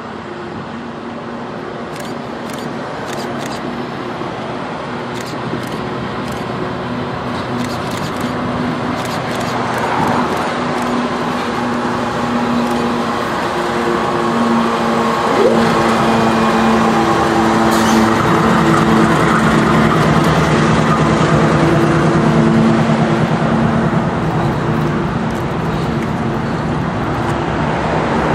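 Diesel-electric freight locomotives of a train running by, their engines droning with steady tones and growing steadily louder as the train draws near and passes.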